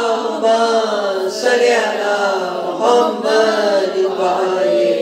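Devotional chanting: long, sustained vocal notes that slowly bend in pitch, with short breaks between phrases.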